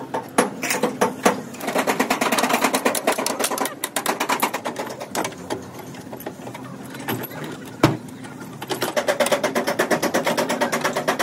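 A small machine running with a rapid, even ticking in two spells, with a single sharp knock between them.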